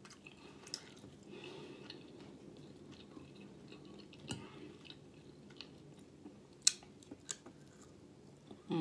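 Soft close-up chewing of sausage and pancake with the mouth closed, with a few sharp clicks of a metal fork on the plate, the loudest about two-thirds of the way through.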